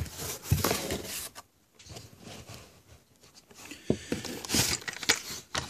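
Rustling and scraping of a cardboard case and the carded Hot Wheels cars in it as they are handled and pulled out, in two spells with a quieter pause between.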